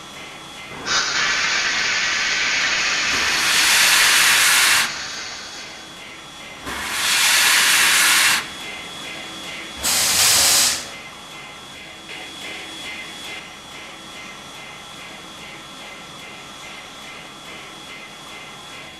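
Steam locomotive letting off steam: a long hiss starting about a second in with a louder blast on top, then two shorter blasts, over a faint steady rhythmic background.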